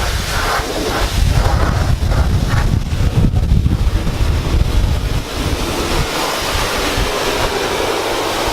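Wind buffeting the microphone over a low, gusty rumble, easing a little about six seconds in.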